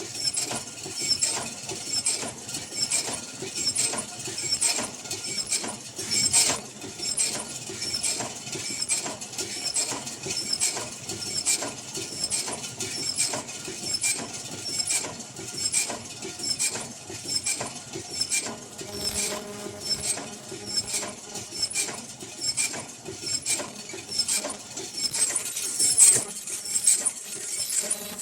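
Automatic N95/FFP mask production machine with inline packing running at high speed: a steady, fast, even rhythm of sharp mechanical clicks and clatter.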